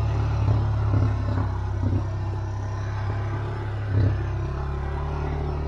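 A motor vehicle's engine running steadily with a low hum, with a few short knocks and rattles, the clearest about four seconds in.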